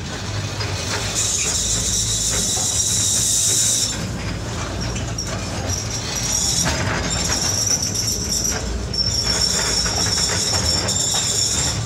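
Elevador da Glória funicular car climbing on its rails: a steady low rumble with high-pitched wheel squeal that sets in about a second in, drops away near 4 s, and comes back from about 6.5 s on.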